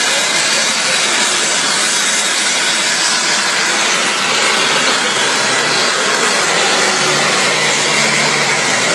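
Radio-controlled model jet hovering nose-up on its engine thrust, giving a loud, steady jet rush that holds without a break.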